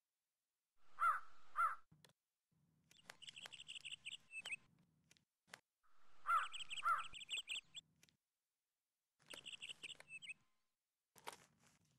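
Birds calling: a crow gives a loud double caw twice, about a second in and again about six seconds in. Between and alongside these, a smaller bird makes rapid high chirping trills in short runs three or four times.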